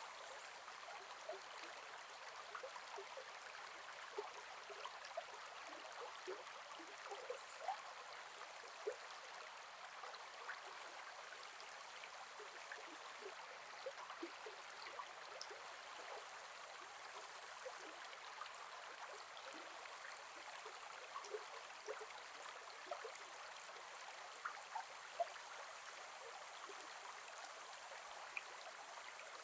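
A gentle forest river flowing in a steady rush, with many small splashes and bubbling pops of water scattered through it.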